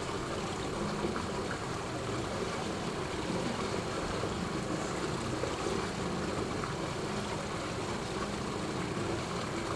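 Steady rushing background noise with a faint low hum underneath, unchanging throughout.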